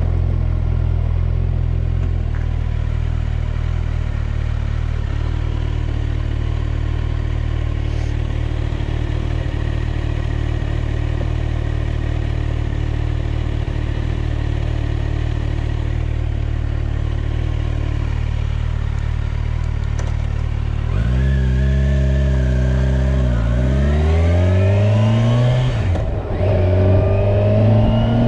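Kawasaki Ninja 1000SX's inline-four engine running steadily at low revs for about twenty seconds. It then pulls hard, the revs rising, with a brief dip and a drop in pitch a few seconds before the end, as in an upshift, and the revs climb again.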